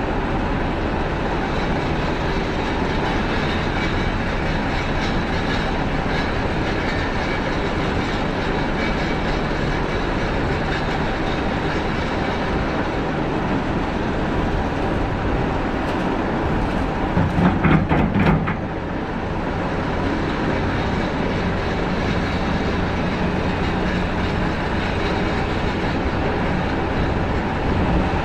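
Steady drone of heavy-equipment diesel engines while an excavator loads topsoil into a steel dump-truck bed. About two-thirds of the way through, a short, louder burst of thuds and rattles comes as a bucketful of soil drops into the bed.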